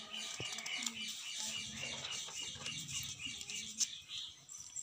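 Small birds chirping rapidly and continuously in the background. Near the end comes one sharp snip of scissors cutting through folded paper, the loudest sound.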